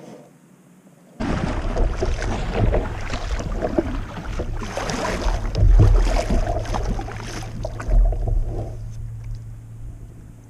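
Wind buffeting the camera microphone, with water splashing and sloshing along a moving kayak's hull. It starts abruptly about a second in and eases off near the end.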